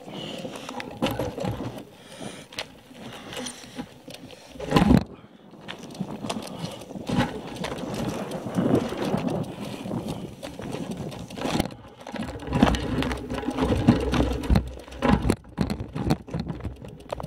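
Handling noise on a handlebar-mounted camera as a stopped bicycle is moved about: irregular rustling and clicks, with one loud thump about five seconds in.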